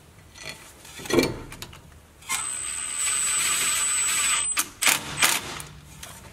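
Makita cordless impact driver spinning a brake rotor retaining screw into the hub: a steady high whir for about two seconds, then a few short trigger bursts to snug the screw down.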